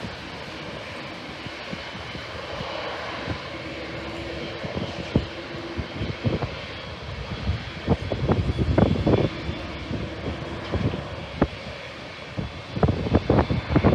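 Jet airliner engines running as a plane passes, a steady rush with a faint held tone. Gusts of wind buffet the microphone about halfway through and again near the end.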